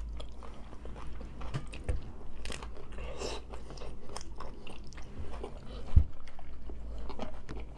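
Close-up chewing and crunching of hard-shell tacos, with crisp crackles of the shell breaking between the teeth throughout. There is a dull thump about six seconds in.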